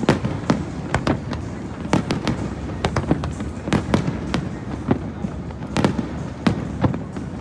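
Fireworks display: a rapid, irregular string of aerial shell bursts and bangs, several a second, over a continuous low rumble.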